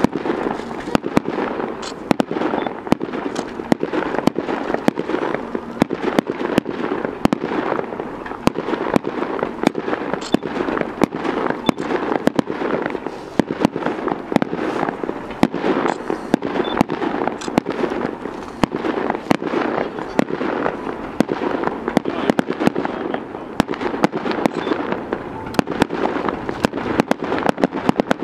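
Aerial fireworks bursting overhead: a continuous stream of sharp bangs and dense crackling with no letup.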